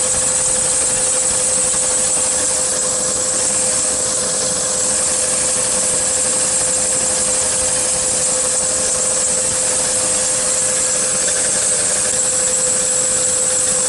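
A 1999 Chevy Suburban's engine idling with the A/C running, a steady hum with one constant tone and a high hiss, while the low side is being charged from a can of R-134a.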